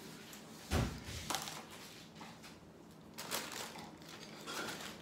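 Handling of stuffed fabric Christmas figures: a heavy thump about a second in as they are set down, then a few short rustles and knocks.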